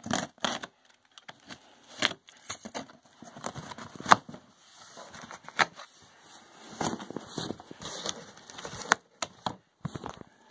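A cardboard shipping box being opened by hand: packing tape and cardboard scratching and crackling, with a few sharp clicks, the loudest about four seconds in.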